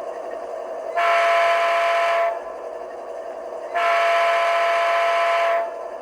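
Sound-equipped HO-scale AC4400CW model diesel locomotive playing through its narrow-body twin speaker: the simulated diesel engine runs steadily while the multi-tone horn sounds two blasts, the second longer than the first.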